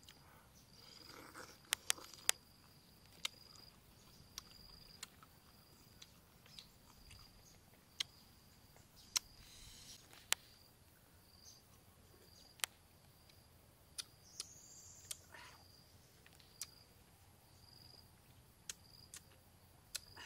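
Scattered sharp clicks and wet mouth smacks of someone eating a sour green lime dipped in salt, every second or so. Under them, an insect trills steadily at a high pitch, breaking off now and then.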